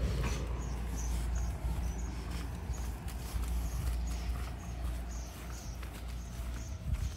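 Footsteps walking at a steady pace on pavement, about two steps a second, over a low rumble.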